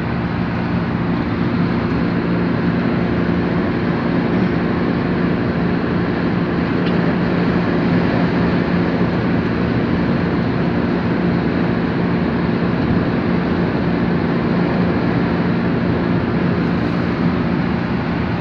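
Steady engine hum and road noise from a moving vehicle, constant in level throughout.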